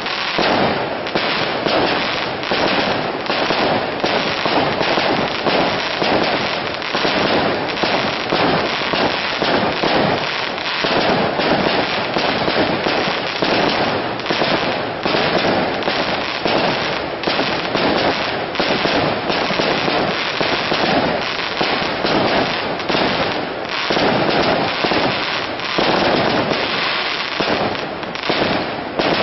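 Aerial fireworks display: shells bursting and crackling in a dense, unbroken run of bangs, several to a second.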